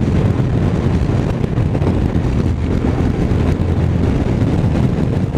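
Honda X-ADV's 745 cc parallel-twin engine running while the scooter is ridden downhill, heard under steady wind noise on the onboard microphone.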